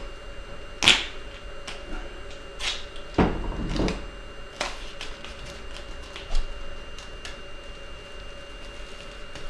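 Duct tape being pulled off the roll and torn: a few sharp rips, the loudest about a second in, and a longer tearing sound around three seconds in.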